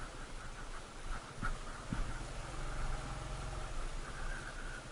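Motorcycle engine running at low speed on a rough, wet dirt road, with a couple of short knocks from the bike jolting over the bumps about one and a half and two seconds in.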